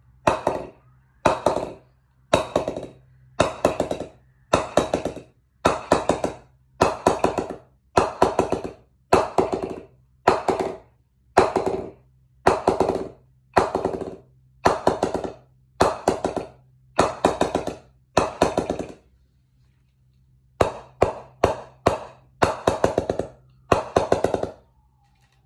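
A wooden mallet knocks the face of a new A2 Coronet cricket bat about once a second. Each knock is followed by a few quick rebounds of the mallet off the blade. The strikes work along the blade from toe to near the top and give a good ping, the sign of a responsive bat, with a brief pause a little before two-thirds of the way through.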